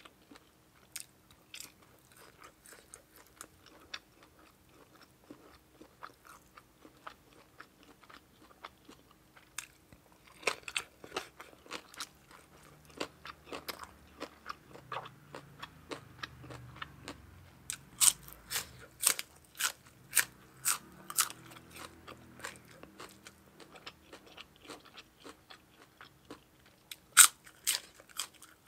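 Close-up eating sounds: crunchy bites and chewing of raw green vegetables and papaya salad, with wet mouth clicks. The loudest crunches come in clusters about a third of the way in, past the middle, and near the end.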